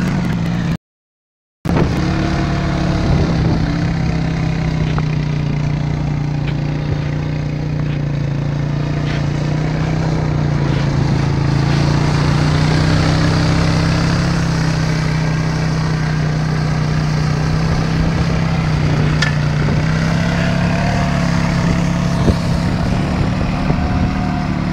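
Quad bike engine running steadily, its pitch staying nearly even and rising a little near the end. The sound cuts out completely for under a second about a second in.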